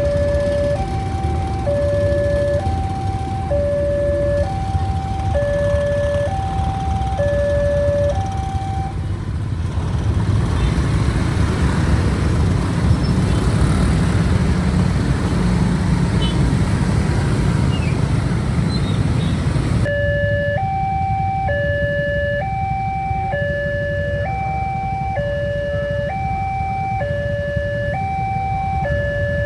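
Railway level-crossing warning siren: an electronic alarm alternating between a low and a high tone, each held about a second. It cuts out about eight seconds in, giving way to about ten seconds of loud low rumbling, then starts again about twenty seconds in.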